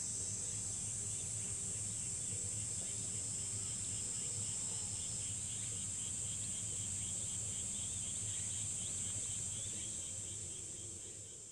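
Evening chorus of insects, crickets among them: a steady high-pitched drone with a faint, evenly repeating chirp over it, fading out near the end.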